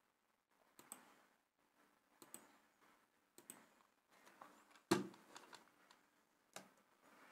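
Faint computer mouse clicks, about five of them spread a second or so apart, the loudest about five seconds in.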